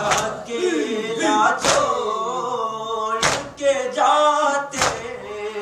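Men's voices chanting a Muharram lament (noha), cut by a sharp slap about every one and a half seconds, four in all, keeping the beat: matam, hands striking chests in time with the chant.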